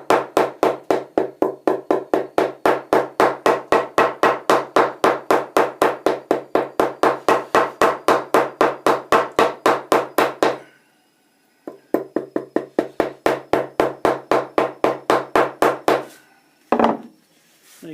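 Bat mallet tapping the toe of a willow cricket bat in a quick, even rhythm of about four knocks a second, each knock ringing briefly. The tapping works over the soft toe to close and seal a glued compression crack. It pauses for about a second just past halfway, resumes, and stops a second or two before the end.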